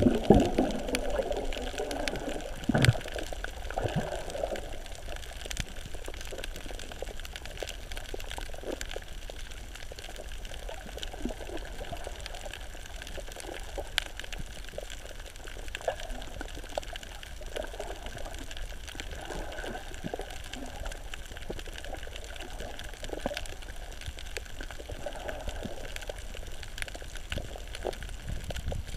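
Underwater ambience picked up by a submerged camera while snorkelling over a reef: muffled sloshing and gurgling water, with scattered sharp clicks and one louder knock about three seconds in.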